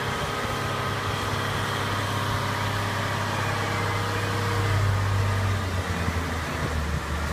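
An engine idling steadily: a low, even hum that drops a little in pitch about six seconds in.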